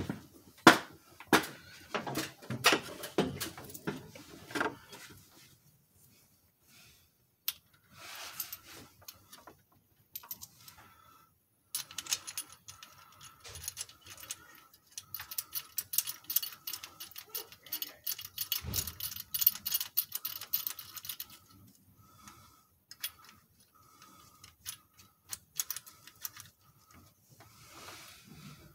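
Steel rocker arms, bridge and bolts clinking as they are set onto the Jeep 4.0's cylinder head, then long runs of rapid clicking as the rocker bolts are run in, a few seconds in and again near the end.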